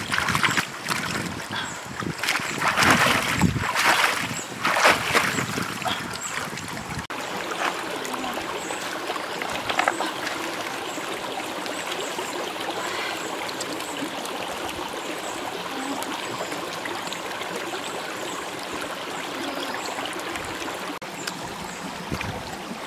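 Water splashing as hands gather apples into a basket standing in a shallow stream, irregular and loud for about the first seven seconds. Then the stream's steady trickle and flow.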